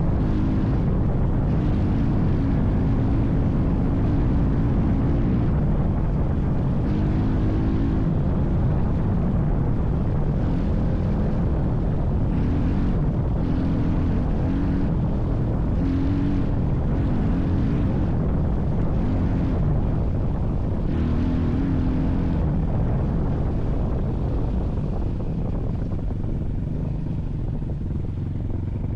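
A vehicle's engine running steadily under load, with its note rising and falling in short spells every second or two.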